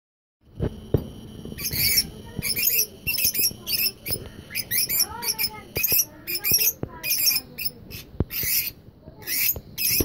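Lovebirds chattering: rapid shrill chirps and squeaks, two or three a second, with a few sharp clicks between them.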